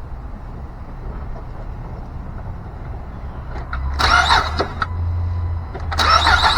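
Honda Odyssey's 3.5-litre V6 being started with a fresh serpentine belt fitted: about four seconds in the starter cranks and the engine catches into a low steady run. Near the end it is cranked and started again.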